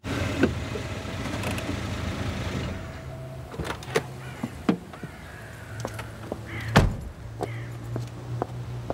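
Car engine running with a steady low hum under street noise, with scattered clicks and knocks and one loud thump about seven seconds in.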